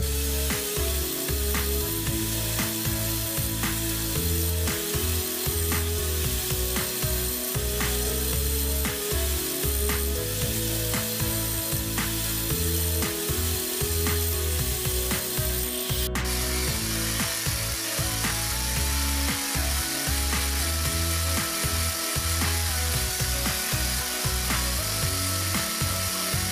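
Electric angle grinder grinding rust off a steel hatchet head, under background music with a steady beat. The sound changes abruptly about 16 seconds in, where a backing-pad sanding disc takes over from the thin abrasive disc.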